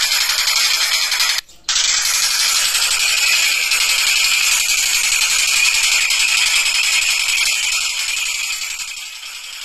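Tengkek buto, a kingfisher, giving fast, harsh rattling chatter calls without let-up. The sound cuts out briefly about one and a half seconds in and grows a little quieter near the end.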